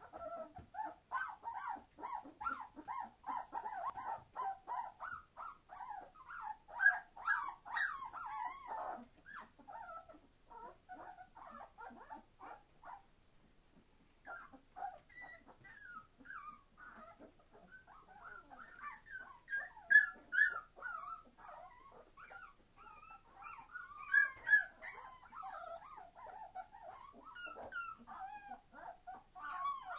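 A litter of three-week-old Entlebucher Mountain Dog puppies crying, with many short, high-pitched overlapping calls. They are busiest in the first third, die down briefly around the middle, then pick up again.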